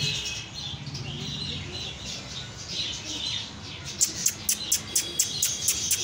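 Caged pet-shop birds chirping and squawking. About four seconds in, a fast, evenly spaced run of sharp high sounds starts, about four a second.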